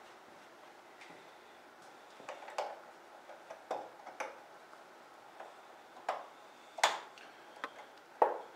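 Irregular light clicks and taps from the airbox cover of a Harley-Davidson V-Rod being handled and fitted into place, with two sharper knocks in the second half.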